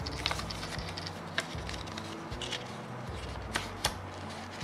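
Black paper envelope handled and opened in the hands: paper rustling with scattered sharp clicks and crinkles, several of them standing out, over a steady low hum.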